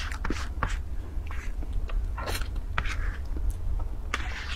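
Close-miked eating sounds: a metal spoon scraping soft cream across a board, with wet mouth smacks and chewing in scattered, irregular clicks.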